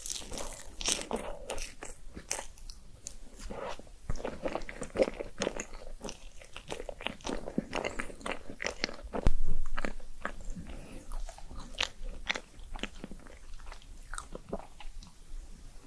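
Close-miked eating: crisp crunching and chewing of food in an irregular run of small crackles and bites, with one loud low thump about halfway through.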